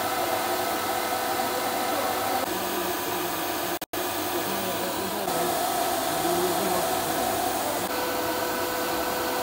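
JGZXF4-CNC-4000 aluminium-profile CNC drilling and milling machine with a 9 kW spindle running: a steady whirr with a few held tones. The sound drops out for a moment about four seconds in, then carries on unchanged.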